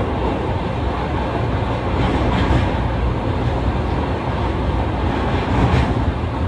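Fukuoka City Subway train running between stations, heard from inside the car: a steady rumble of wheels and running gear, with two brief louder swells, about two and a half seconds in and near the end.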